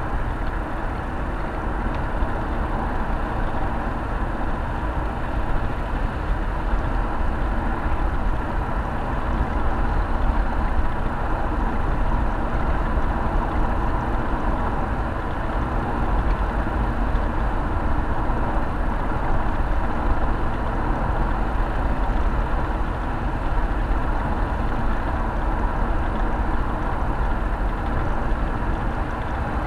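Steady road and wind noise of a car cruising at open-road speed, heard from inside the cabin: an even rumble of tyres, wind and engine with no changes.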